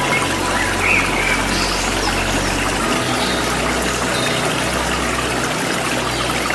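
Waterfall rushing steadily, with a few short, high bird chirps over it in the first few seconds.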